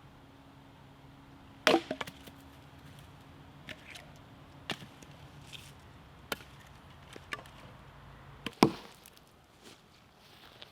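Firewood being chopped into smaller pieces: two heavy chopping strikes into wood, about a second and a half in and near the end, with a few lighter knocks and cracks between.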